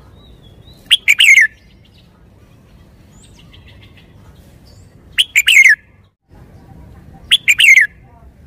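Red-whiskered bulbul singing three short, loud song phrases: one about a second in, one past the middle and one near the end, each a quick run of notes falling in pitch.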